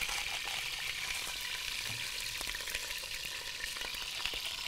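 Bone-in chicken pieces shallow-frying in hot oil in a pot: a steady sizzle.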